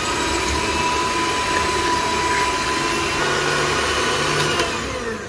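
Electric hand mixer running at speed, its beaters whipping eggs and sugar in a stainless steel bowl for a genoise sponge. A steady motor whine that winds down near the end.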